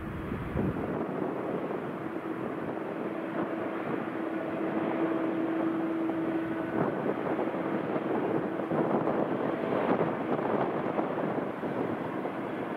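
Airbus A320-214's CFM56 jet engines running as the airliner moves on the ground: a steady rushing noise with a low steady tone through it. The sound grows louder up to about ten seconds in.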